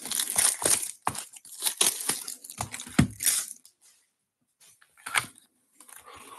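Plastic shrink wrap being torn and crinkled off a sealed cardboard trading-card hobby box: a run of rips, crackles and snaps for about three seconds, then a pause and one short rustle about five seconds in as the box is opened.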